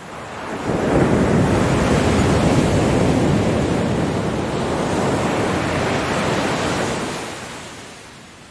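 Ocean wave breaking and washing up: the rush of surf surges in suddenly under a second in, stays loud for about six seconds, then fades away.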